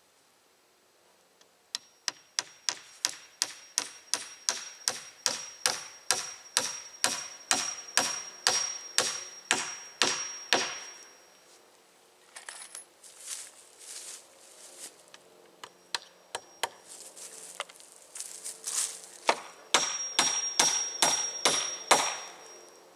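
Hammer driving nails into wooden fence poles: a long run of steady blows about two a second, each with a high metallic ring, then a pause with a few scattered lighter knocks, and another quick run of ringing blows near the end.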